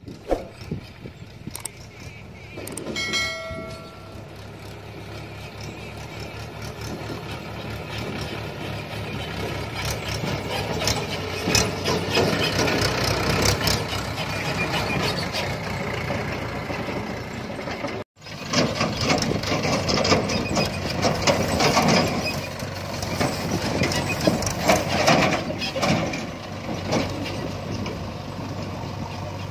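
Mahindra 585 DI tractor's diesel engine running under load while pulling a fully loaded trolley, growing louder as the tractor approaches. A brief tone sounds about three seconds in.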